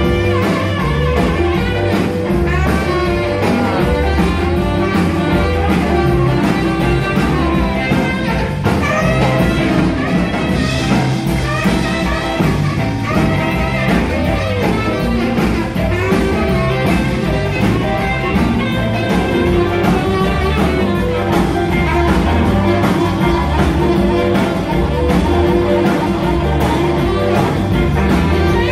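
Live band playing an instrumental rock and roll passage: saxophone and guitar over bass guitar and drums, with a steady beat.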